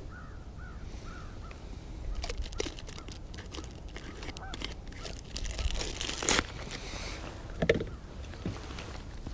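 A bird calls in a quick series of short arched notes during the first second and a half. After that come clicks, knocks and crinkling as a small plastic jar of fish scent and tackle are handled, with two sharper knocks in the second half the loudest.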